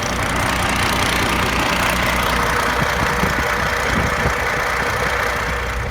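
Diesel truck engine running steadily under an even hiss of noise.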